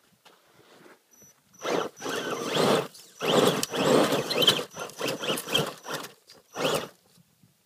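Axial Wraith RC rock crawler's electric motor and gear drive whirring in several throttle bursts, starting about a second and a half in. Its tyres scrabble and scrape against dirt and rock as it claws up a tight crack.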